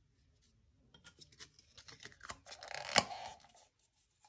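Plastic paint cups being handled: light clicks and scraping, with one sharp tap about three seconds in.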